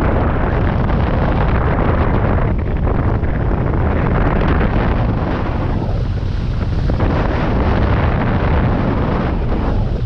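Airflow rushing over the microphone of a camera mounted on a hang glider in flight: loud, gusting wind noise, its hiss thinning briefly about six seconds in.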